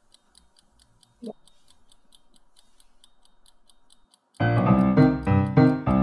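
Faint, even ticking of a bomb's timer, about four ticks a second. About four seconds in, loud piano-like keyboard music starts over it.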